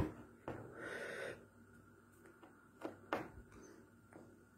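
Soft taps and rustles of a person's hands moving against the chest, face and clothing while signing, with a brief breathy rush about a second in.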